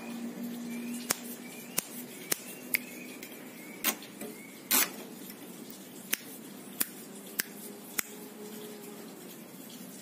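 Sharp irregular ticks, about ten, from a caged plain prinia (ciblek sawah) moving about its bamboo cage, the loudest a double tick about five seconds in. Faint short high chirps sound in the first few seconds.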